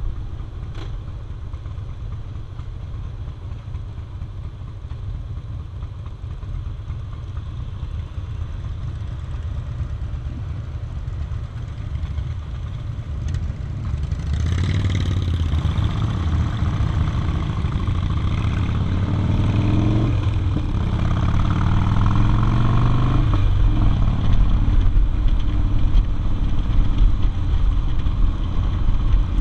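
Harley-Davidson V-twin motorcycle engine heard from the rider's seat: a low rumble while the bike rolls slowly, then about halfway through it pulls away under throttle, louder, the pitch climbing and dropping back at gear changes.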